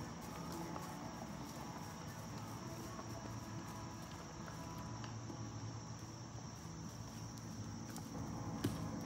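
Steady high-pitched chorus of insects, one unbroken trill. There is a single short knock near the end.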